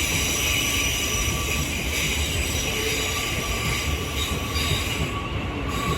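Electric multiple-unit train moving through the station with its wheels squealing on the rails: several steady high-pitched tones over a low rumble.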